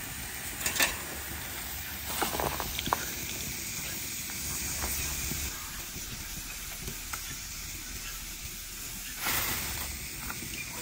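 Steady sizzling hiss from a hot clay comal, with a few light crackles and clicks of a plastic bag as fire-roasted serrano chiles are peeled over it. A brief louder rush of noise comes about nine seconds in.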